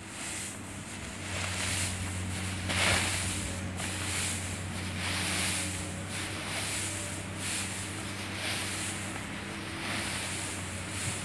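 Dry hay rustling in swells as it is pulled out of a woven sack and scattered on the ground, over a steady low hum.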